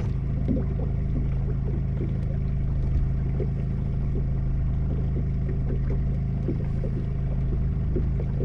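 Fishing boat's motor running steadily at slow trolling speed, about two miles an hour: a low, even hum.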